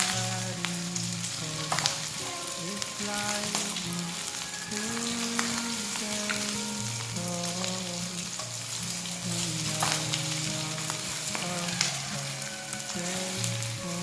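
Food frying in hot oil in a pan, a steady sizzle with scattered sharp clicks, under a soft instrumental melody of held notes.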